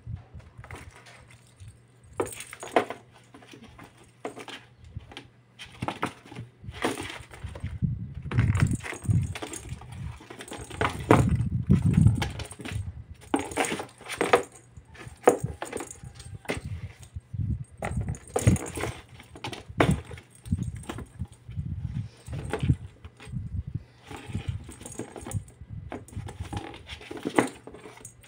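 A kitten batting and pouncing on a small plastic toy ball in a cardboard box. Irregular knocks and scrabbling of ball and paws on the cardboard, with light jingling rattles from the ball and a run of heavier thuds around the middle.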